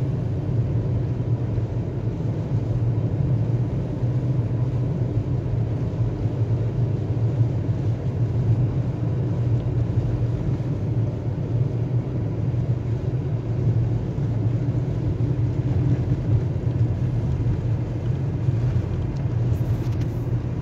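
Steady low drone of a Volkswagen Golf IV driving on a snow-covered road, heard from inside the cabin: engine and road rumble at an even speed.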